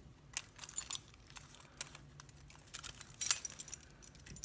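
A bunch of small metal keys on a key ring jingling and clinking as they are handled and sorted, in scattered light clinks with a louder cluster about three seconds in.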